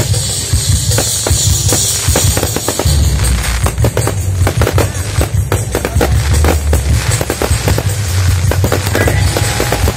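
Fireworks going off: rapid bangs and crackling from about a second in, over loud background music with a heavy bass.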